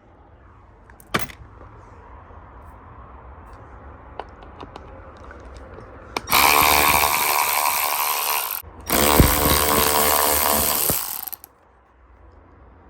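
Cordless power driver running in two bursts of about two seconds each, spinning out bolts, with a sharp click about a second in.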